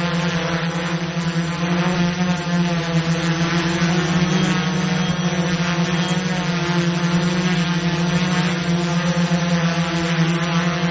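Multirotor drone's motors and propellers humming steadily at an unchanging pitch.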